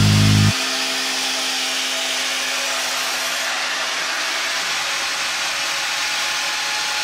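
WRAVOR WRC 1225 AC stationary bandsaw running with a steady, even noise. A music track cuts off about half a second in.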